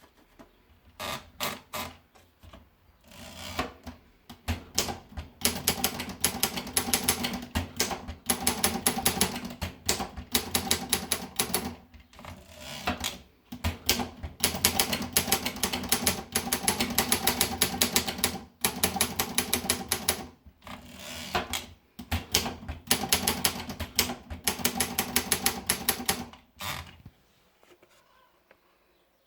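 Olympia Progress manual typewriter being typed on: quick runs of key strikes with short pauses between them, stopping about two seconds before the end.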